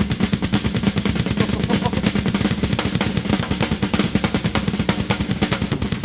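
Live rock drum solo on a full drum kit: a fast, unbroken stream of drum strokes in rolls, with bass drum underneath.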